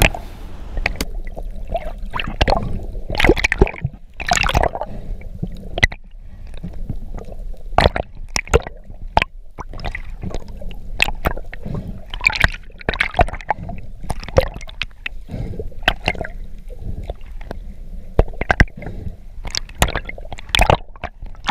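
Underwater sound through a GoPro dive housing: water gurgling and sloshing against the housing, with many irregular sharp clicks and knocks and a few louder swells.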